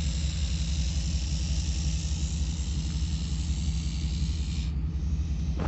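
Steady low engine rumble, like a vehicle idling nearby, with an even hiss above it that drops away near the end.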